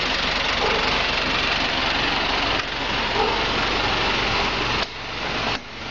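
Engine of a Kia vehicle idling steadily; its builder claims it runs on hydroxy gas made from water by electrolysis. Near the end the sound suddenly drops and turns muffled for a moment.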